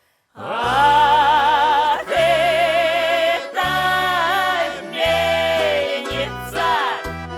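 A woman singing long held notes with wide vibrato over a backing track with a pulsing bass; the music starts about half a second in, after a brief silence.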